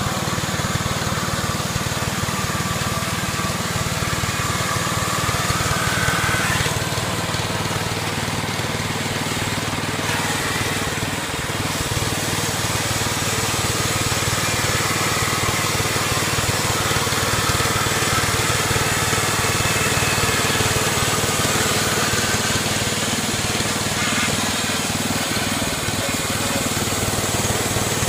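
Small gasoline engine of a portable band sawmill running steadily.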